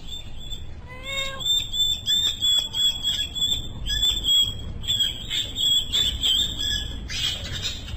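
A small animal squeaking: a short rising call about a second in, then a rapid run of high-pitched squeaks that goes on almost without a break.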